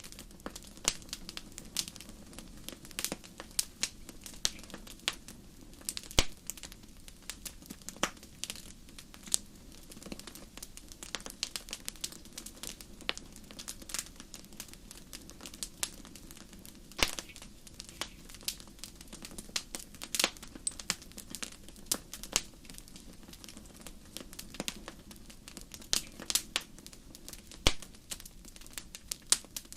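Fire crackling: irregular sharp pops and snaps, several a second, some much louder than others, over a faint steady low background.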